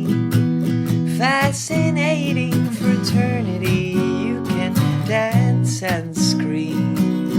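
Music: strummed acoustic guitar chords, with a melody line above them that glides and bends in pitch.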